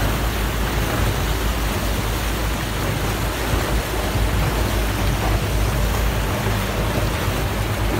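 Speedboat under way: a steady rush of engine drone, churning wake water and wind on the microphone, with no breaks.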